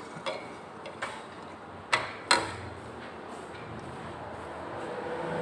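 A few short, sharp clicks. The two loudest come close together about two seconds in, over a steady background hiss that swells near the end.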